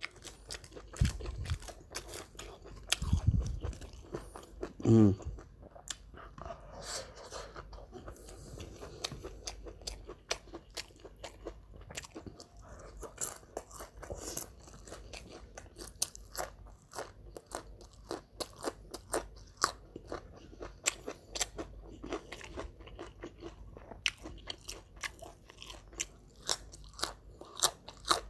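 Close-up chewing and crunching of crisp food from a pecel lele meal (fried catfish and raw vegetables), with many sharp crunches at an irregular pace.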